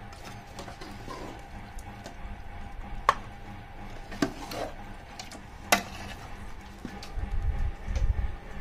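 A metal ladle scraping and scooping chicken curry in a metal pot and knocking against the pot and a stainless steel bowl, with a few sharp clinks, the loudest about three and about five and a half seconds in. A low rumble comes in near the end.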